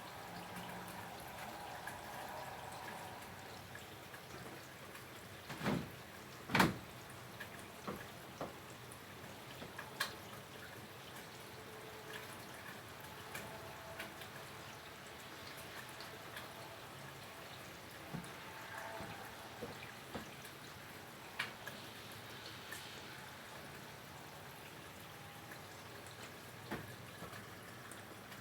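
Steady light rain with scattered drips and drops tapping, and two louder sharp taps about six seconds in.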